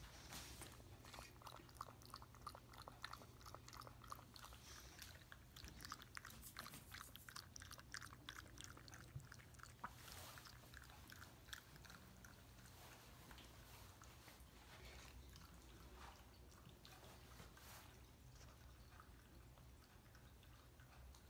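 A cat lapping water from a drinking glass: a faint, quick run of wet laps that thins out over the second half.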